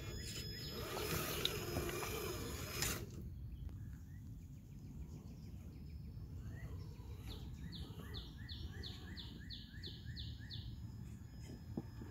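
Traxxas TRX-4 RC crawler's electric motor and gears whining as it crawls over rocks, stopping abruptly about three seconds in. Later a songbird sings a quick run of about ten repeated notes, some three a second, over a low rumble of wind.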